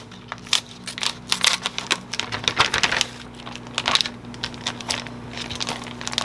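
Scissors snipping open a plastic food pouch, then plastic packaging crinkling and rustling in uneven bursts of small crackles as wrapped fish packs are pulled out and unwrapped. A faint steady hum runs underneath.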